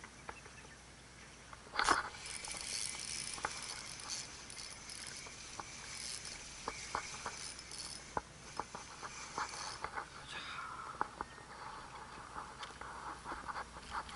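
Daiwa Certate spinning reel being cranked to reel in a hooked horse mackerel: a steady high whirring hiss with scattered small clicks, after a single sharp click about two seconds in.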